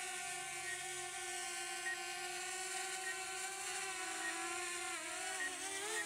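DJI Mavic Air quadcopter's propellers whining steadily as it hovers. The pitch dips and then rises again near the end as the drone moves off.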